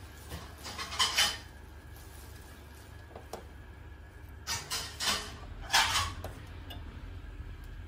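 Lid of a Sonashi electric roti maker being lifted and then lowered shut: clattering metal-and-plastic knocks and scrapes, one short cluster about a second in and a longer one from about four and a half to six seconds in.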